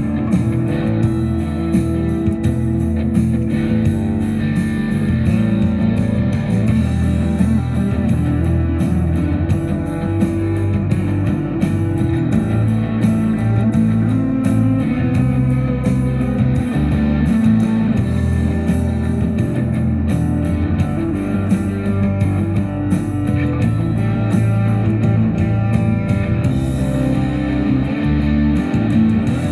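Background music: guitar-led rock with a steady beat.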